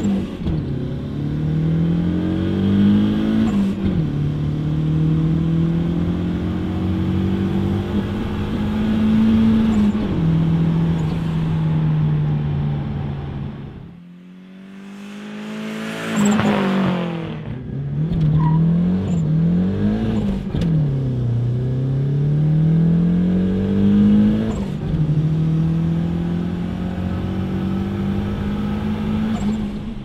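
Turbocharged VW Corrado 2.0 9A four-cylinder accelerating hard through the gears, heard from inside the cabin; the engine note climbs and then drops at each shift. Near the middle it goes quieter, then swells as the car sweeps past at speed.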